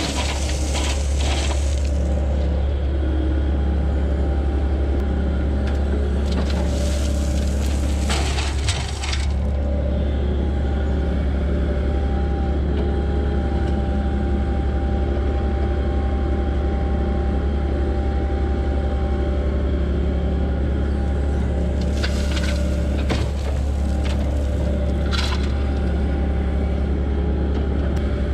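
Heavy diesel equipment engine running in a steady low drone while base rock pours and grinds, in three bursts of a few seconds each: at the start, about seven seconds in, and again near the end.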